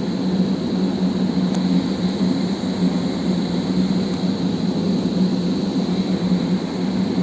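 Steady mechanical drone of running machinery: a constant low hum under an even rushing noise, unchanging throughout.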